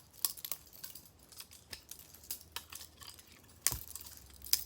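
Irregular light clicks and clinks of small hard objects being handled, with a louder knock a little before the end.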